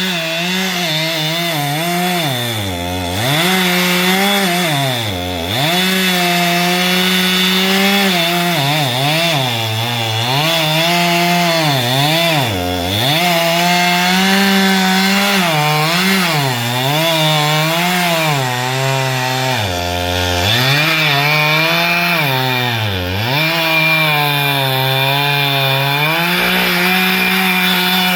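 Chainsaw cutting wood, its engine revving up to full speed and dropping back toward idle again and again.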